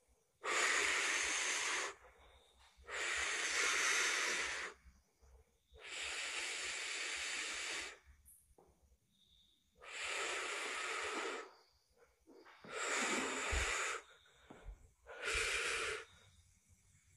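Slow, heavy human breathing close to the microphone: six long, breathy exhalations or inhalations about two and a half seconds apart, with quiet between them.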